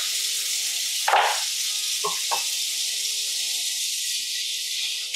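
Kitchen faucet running steadily into the sink while dishes are handled, with a knock about a second in and two lighter clinks about a second after that.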